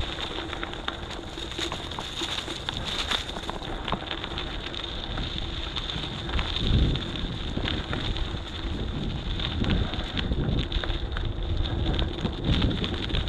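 Wind buffeting the microphone during a bicycle ride, with a steady low rumble and frequent small clicks and knocks from the bike rolling over the road.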